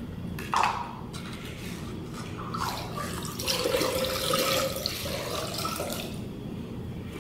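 Water running and splashing, fuller in the middle few seconds, with a brief sharper sound about half a second in.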